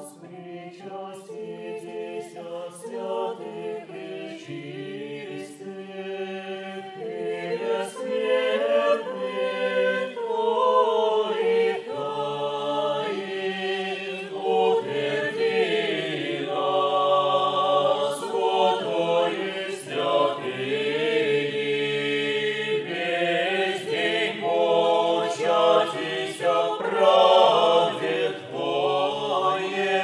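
Mixed choir of men and women singing an Orthodox communion verse a cappella, the melody moving above a steadily held low note. The singing swells over the first ten seconds or so and then stays full.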